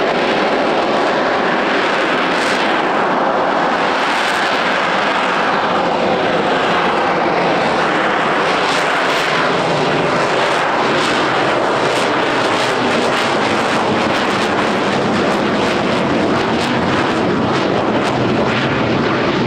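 Rolls-Royce Pegasus vectored-thrust turbofan of an AV-8B Harrier II Plus running at display power: loud, steady jet noise, with some crackle in the later part.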